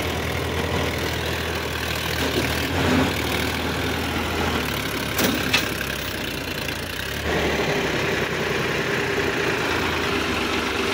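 Sonalika DI 745 III tractor's diesel engine running steadily, its note changing and getting louder about seven seconds in. Two short sharp knocks about five seconds in.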